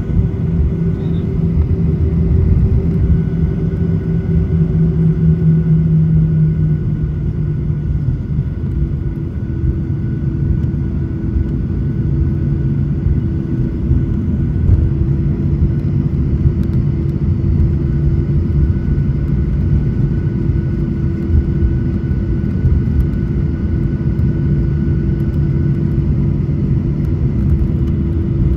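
Jet airliner engines heard from inside the cabin while the plane taxis on the ground: a steady low rumble with a hum in it, which drops slightly in pitch about seven seconds in.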